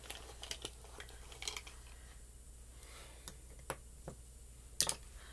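Scattered light clicks and taps of small objects being handled on a desk, with a sharper double click about five seconds in.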